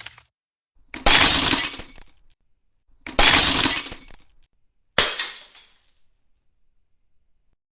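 Glass shattering three times, a second or two apart: each is a sudden crash that dies away within about a second, and the last is the shortest.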